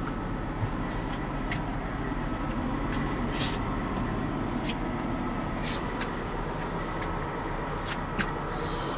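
Steady running hum of a GMC C5500 shuttle bus heard inside its passenger cabin, with a few faint clicks and taps.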